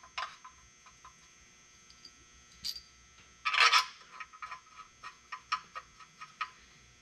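Loose steel bolts clinking in a hand and against the engine's rocker housing as they are set in place. Scattered light metallic clicks, with a louder jangle about halfway through and a quick run of small clicks after it.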